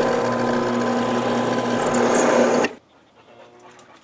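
Drill press motor running steadily with a low hum that cuts off abruptly about two-thirds of the way through. Faint light clicks follow.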